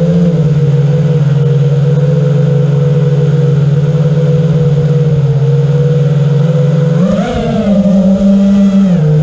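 Racing quadcopter's brushless motors and propellers whining steadily, heard from the onboard camera. About seven seconds in the pitch jumps up as the motors speed up, holds high for a couple of seconds, then drops back near the end.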